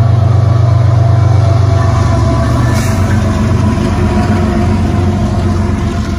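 Canadian Pacific diesel-electric freight locomotives passing close by, their engines running with a loud, deep, steady drone.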